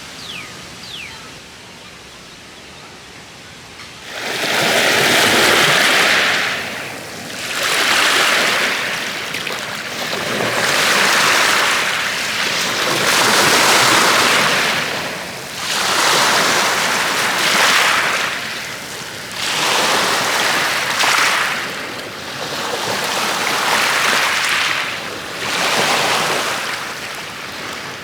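Ocean surf: waves breaking on a beach, swelling and falling away about every two to three seconds. The waves come in about four seconds in, after a quieter opening with a few faint bird chirps.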